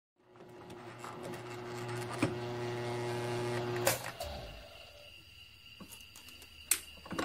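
Grizzly G1007 mill-drill running while a step drill cuts a hole in a muffler's perforated core tube. The motor hum builds steadily and stops about four seconds in. A few sharp clicks follow as the tube is handled.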